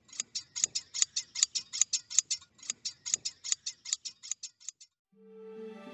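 Hand blade shears snipping in a quick, even rhythm, about five snips a second, stopping a little before the end. Music comes in near the end.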